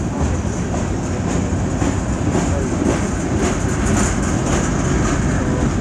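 Freight cars of a CN freight train rolling past: a steady rumble of steel wheels on rail, with light repeated clicks over the rail joints in the middle.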